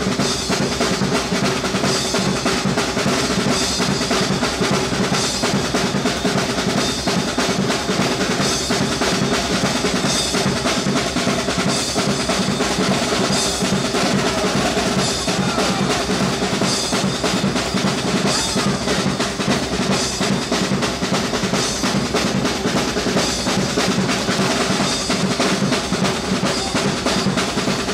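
Live wind band playing a piece, with held brass and woodwind notes over a drum kit keeping a steady, fast beat of bass drum and snare.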